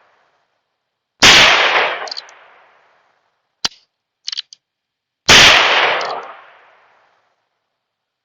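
Two shots from a Heritage Rough Rider single-action .22 revolver firing .22 Magnum, about four seconds apart, each followed by a trailing echo. A few short metallic clicks come between the shots.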